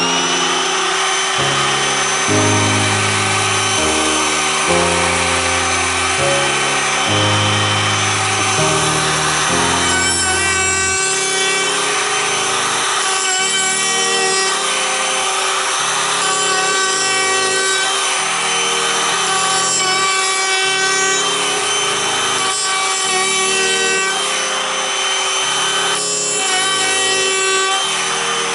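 Compact wood router (trimmer) winding up to speed with a rising whine at the start, then running with a steady high whine while its bit chamfers the edge of a round wooden disc, the cutting noise swelling and easing as it works around the curve. Background music plays underneath.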